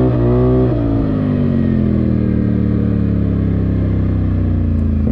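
Polaris Sportsman XP 1000 S ATV's twin-cylinder engine under way. The revs peak about half a second in, then the engine note falls slowly and steadily and settles into an even run.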